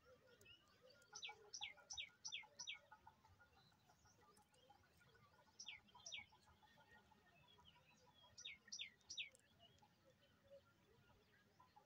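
A bird calling in series of quick, high, downward-sweeping chirps: a run of about five notes, then two, then four.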